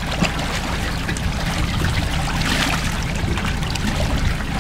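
Water splashing at the boat's side as a tuna is handled in the water, over the steady hum of an idling outboard engine; the splashing is loudest about two and a half seconds in.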